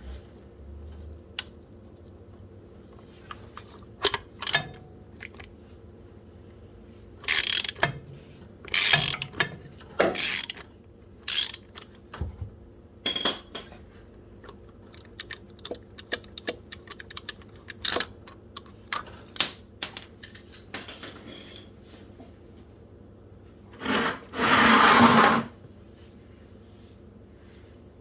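Ratchet wrench clicking in short bursts, with scattered metal clinks of tools, while a tight oil pressure sensor fitting is worked loose on an engine. The longest and loudest burst of clicking comes near the end.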